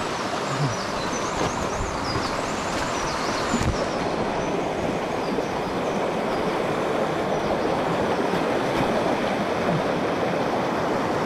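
Mountain stream rushing over rocks: a steady, full rush of water.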